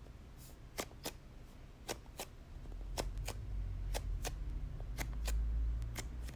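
Hands handling a foam squishy toy: sharp clicks come in pairs about once a second, over a low handling rumble that builds in the second half.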